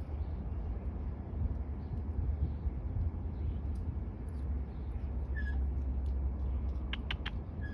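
Blue jay giving soft calls: a short whistled note about five seconds in, then a quick run of three clicks and another whistled note near the end, over a steady low rumble.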